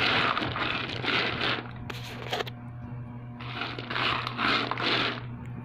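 Roasted skinless peanuts being stirred in a pan: two long scraping, rattling passes, with a few sharp clicks in the pause between them, over a steady low hum.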